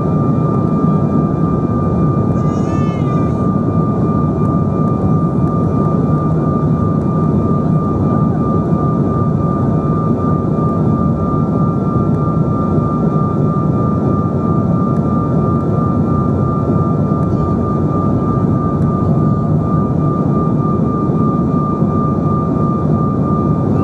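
Steady airliner cabin noise in a Bombardier CRJ900: the rush of air and engine noise from its rear-mounted GE CF34 turbofans, with a steady whine on top. A brief high wavering sound comes about two to three seconds in.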